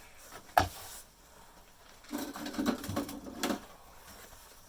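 Bread maker motor being worked apart by hand: a sharp metal knock about half a second in, then a rapid rattle of metal parts for about a second and a half. The motor is stuck because it has been nipped.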